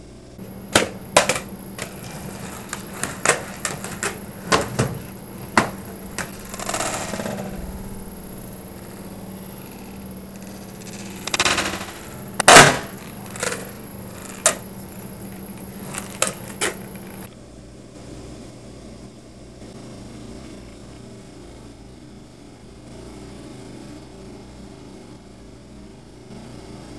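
A skateboard popping and slapping down on a hard floor during repeated frontside half-cab heelflip attempts: a string of sharp clacks and knocks, the loudest about halfway through, with a couple of short rolling rumbles. They stop suddenly after about 17 seconds, leaving a low steady hiss.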